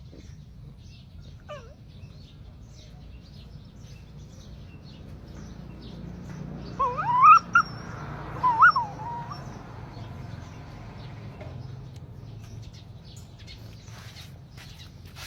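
Two bouts of high, wavering squealing cries from a small animal, about seven and about eight and a half seconds in, over a steady low background noise.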